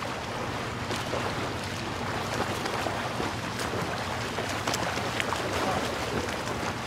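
Steady rushing wind-and-water noise, with wind on the microphone and scattered small ticks.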